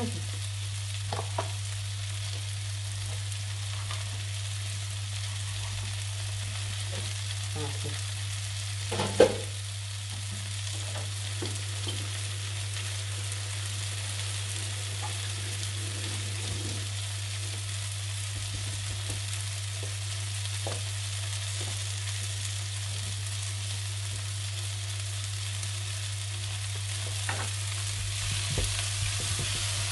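Mushrooms, cherry tomatoes and onion sizzling steadily in a frying pan on an induction hob, over a steady low hum. A single sharp knock about nine seconds in is the loudest sound, and near the end a spatula clicks and scrapes as the vegetables are stirred.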